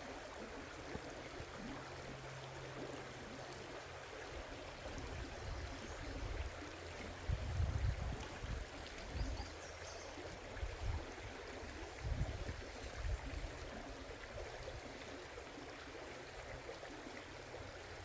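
Creek water flowing steadily, a continuous rushing hiss. A few dull low bumps come through about midway.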